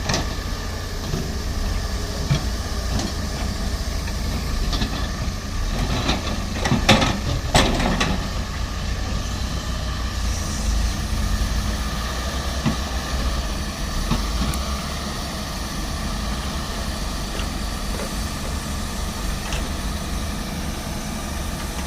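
Heavy diesel construction machinery running steadily with a low rumble, with a few sharp knocks about six to eight seconds in.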